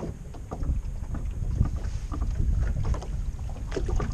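Water lapping and splashing against the hull of an aluminum john boat moving slowly through the water, with wind buffeting the microphone and a few small knocks and splashes.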